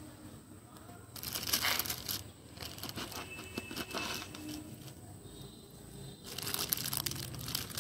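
Plastic packing and bubble wrap rustling and crinkling as earrings are unwrapped by hand. It comes in two spells: the louder one about a second in, the second near the end, with quieter handling between.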